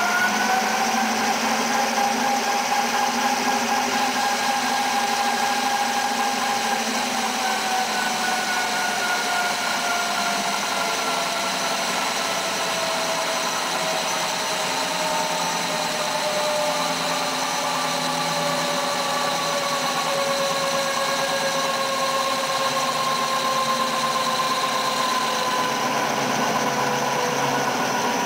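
Buffalo engine lathe, converted to CNC, boring a large metal part, its spindle drive running with a steady whine under the cut. The whine climbs in pitch over the first second, holds for several seconds, then sinks slowly for the rest.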